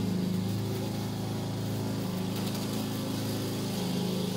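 A motor running at a steady, even pitch: a continuous low drone.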